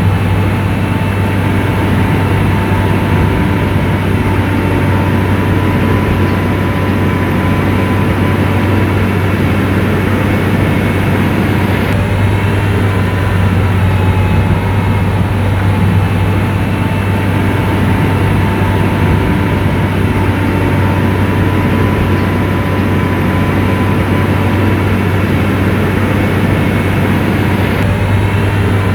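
SDLG motor grader's diesel engine running steadily: a loud, even low drone with a faint steady whine above it.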